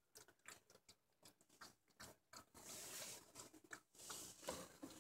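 Faint, quick wet clicks and smacks from a mother dog licking her newborn puppies, with soft rustling about halfway through and again near the end.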